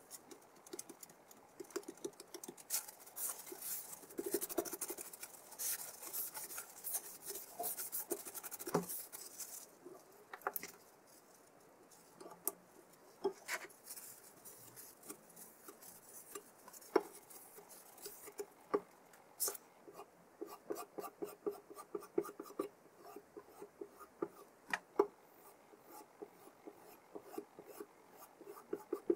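Steel chef knife blade scraping in quick, hissy strokes for about ten seconds, then a scattered run of light clicks and ticks.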